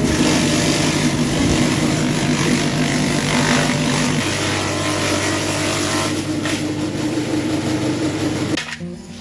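An engine running steadily, its note shifting about four seconds in; the sound cuts off shortly before the end.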